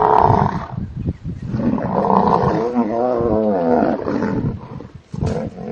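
Buffalo bellowing: a loud call that ends under a second in, a second call in the middle whose pitch wavers up and down, and a third beginning near the end.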